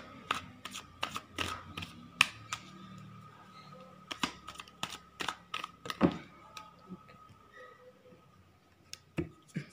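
A deck of tarot cards being shuffled by hand: a string of irregular clicks and taps as the cards strike and slide against each other, over a faint steady high tone.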